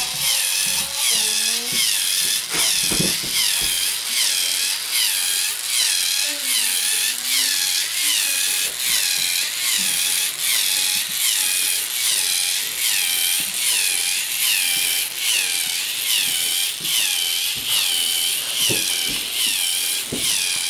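K'NEX Cyber Swarm Colonel Buzz walking robot, its small electric motor and plastic gear train driving the legs: a whine that dips and rises with a click about twice a second, in a steady rhythm with each stride.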